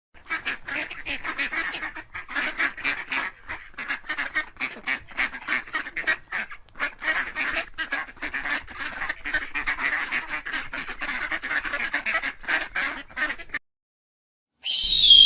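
A group of birds calling rapidly and continuously, many short calls a second, stopping abruptly near the end. Just before the close, a high whistling tone begins and falls slightly in pitch.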